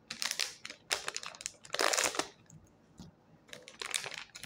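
Toy blind-bag packaging crinkling as it is handled and opened by hand, in four short bursts of crackle with brief pauses between.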